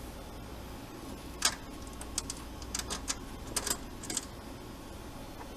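A hand handling cables and connectors inside an analyzer cabinet: a run of about ten sharp clicks and light rattles, the loudest about a second and a half in, over a steady low hum.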